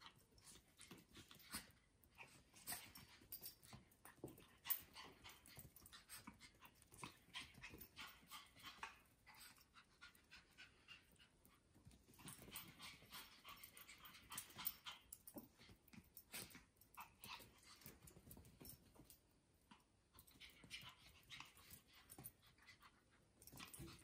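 Two Pomeranians playing and chasing on a hard tile floor: faint clicking and scrabbling of claws on the tiles, with panting, coming in bursts with short quieter gaps.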